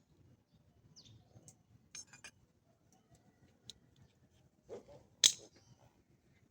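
Scattered metallic clinks and clicks of parts or tools being handled, with one sharp clank about five seconds in.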